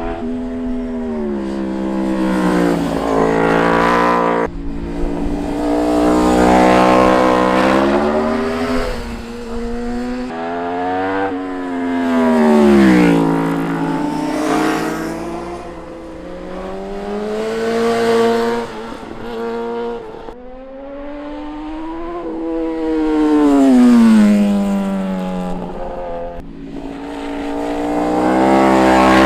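Sport motorcycles passing one after another, each engine revving up, then dropping in pitch as it goes by. About five or six passes, loudest roughly every five to six seconds.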